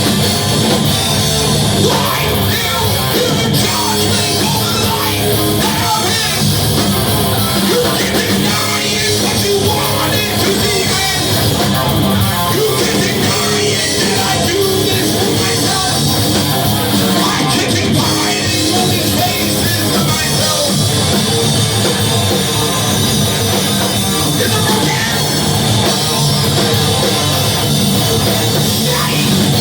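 Rock band playing a song live, loud and steady, with a drum kit and singing.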